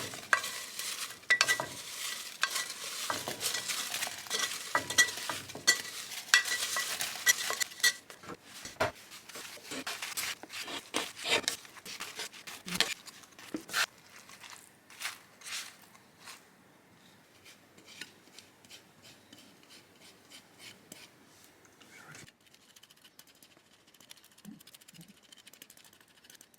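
Kitchen clatter of utensils and dishes clinking while food sizzles in a pan for the first several seconds; the clinks then thin out and fade to a few faint taps.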